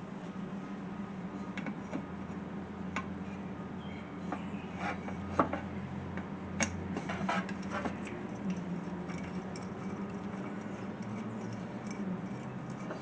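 Small metal parts of a cold air intake kit clinking and tapping as they are handled and fitted, in scattered light knocks, most of them in the middle, over a steady low hum.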